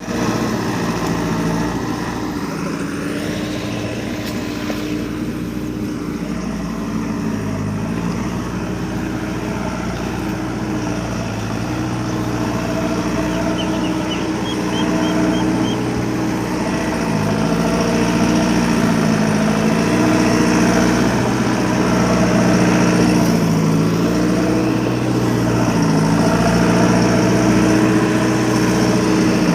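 Diesel engine of a JCB 3DX backhoe loader running under load while digging and loading mud. Its note drops and rises again several times as the work goes on.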